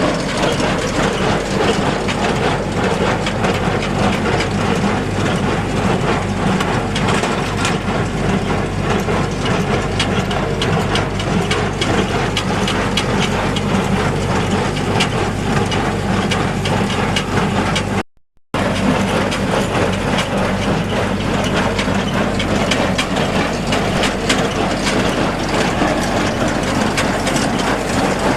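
Tractor engine running steadily while driving a Massey Ferguson 1837 inline small square baler at work, with continuous mechanical clatter and knocking from the baler. The sound drops out briefly about two-thirds of the way through.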